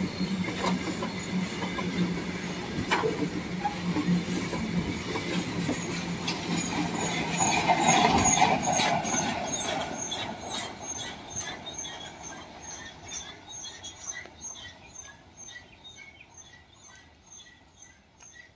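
Freight train wagons rolling past with wheels clattering and rumbling, growing loudest about eight seconds in and then fading steadily as the end of the train recedes. A bird chirps over the fading rumble about twice a second in the second half.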